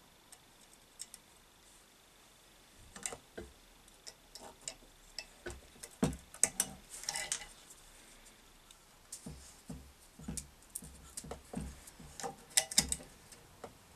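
Irregular clicks, taps and small knocks of hands handling a bench grinder's wiring and metal cover plate as they are fitted back into place, with a few louder knocks about six seconds in and near the end.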